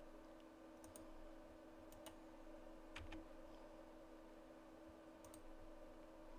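A few faint computer mouse and keyboard clicks, some in quick pairs, over a steady faint hum: shortcut keys and mouse clicks while editing a 3D mesh.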